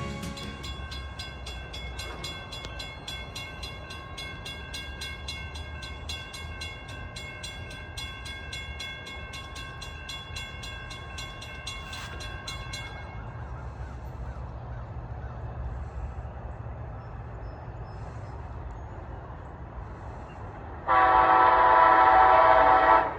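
Amtrak train approaching with a low rumble, while a bell rings steadily and then stops about halfway through. Near the end the leading ALC-42 Charger locomotive sounds one loud horn blast of about two seconds.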